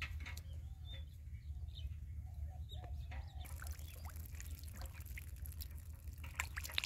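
A few short clucking calls from a farm fowl in the first half, over a steady low rumble, with a faint high hiss and scattered clicks joining about halfway.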